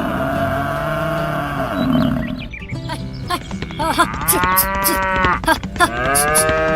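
Cattle mooing: one long held call, then two more long calls that rise and fall in pitch.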